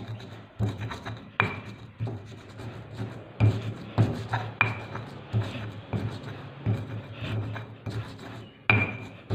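Stone pestle grinding and scraping on a flat stone mortar (Indonesian ulekan and cobek), crushing garlic, candlenuts, coriander seeds and salt into a spice paste. Irregular gritty rubbing strokes with sharp stone-on-stone knocks every half second to a second.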